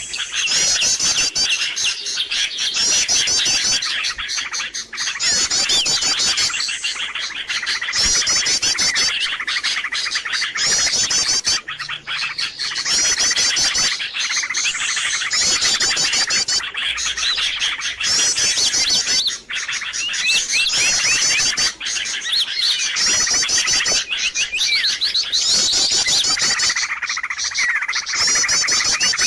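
A dense, noisy chorus of many small birds chirping and twittering, with rapid high trills repeating in short bursts about every second. It is a bird-lure (pikat) call recording used to draw wild birds in.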